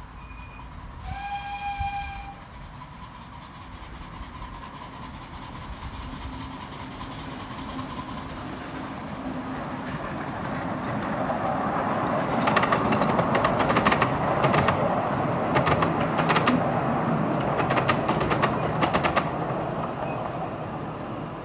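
Miniature railway locomotive giving a short whistle about a second in, then its train approaching and running past, the rumble growing and then easing off, with a fast series of wheel clicks over the rail joints while it is closest.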